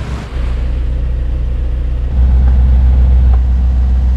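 Sailboat's inboard diesel engine droning steadily under way, getting louder about two seconds in.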